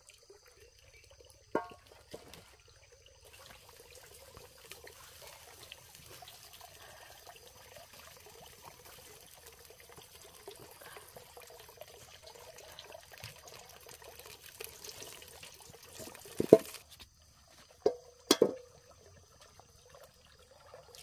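Faint trickling water, with a sharp knock about a second and a half in and a few louder knocks near the end.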